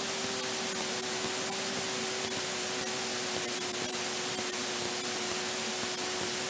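Steady hiss with a faint, unchanging hum beneath it: a Kitfox light aircraft's cockpit during a landing approach, the engine's drone muffled down to a low even tone.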